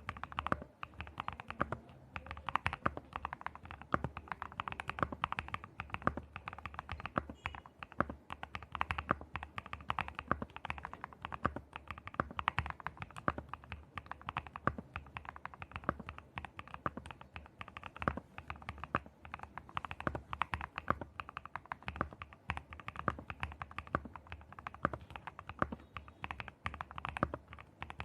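Mechanical keyboard with Gateron linear switches being typed on continuously: a rapid, irregular patter of keystrokes with no tactile bumps or click jackets.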